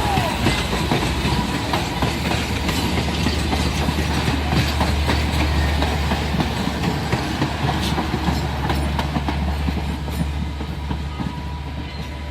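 Passenger train cars rolling along the track: a steady rumble with many quick wheel clicks over the rails, easing off a little near the end.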